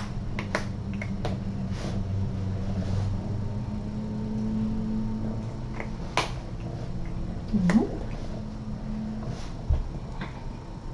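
Calico cat purring, a steady low rumble that stops about nine seconds in. A few sharp clicks are scattered through it, and near eight seconds there is a short sliding sound, the loudest moment.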